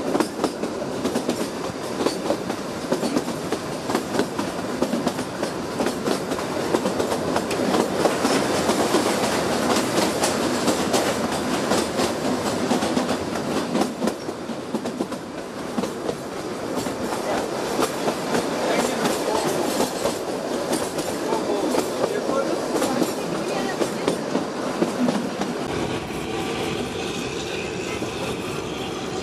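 Narrow-gauge train running, heard from an open coach door: wheels clattering over the rail joints with a dense run of clicks and the coach rattling. About 26 seconds in it gives way to a quieter, steadier outdoor background.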